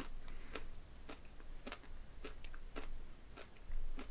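Close-miked chewing of crunchy candy-coated chocolates (Pumpkin Pie M&M's), a short crisp crunch about twice a second.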